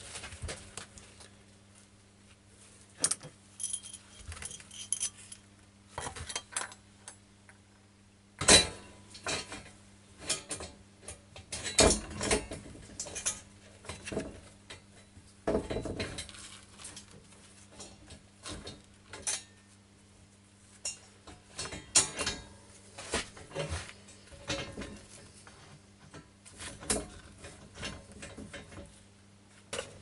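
Irregular metallic clinks and knocks of parts and tools being handled while a wheel is fitted to a mini bike frame, the loudest knocks about 8 and 12 seconds in, over a faint steady low hum.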